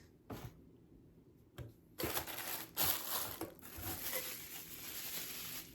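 Packaging being handled and unwrapped by hand: a couple of soft clicks, then from about two seconds in a continuous crinkling rustle with a few sharper crackles.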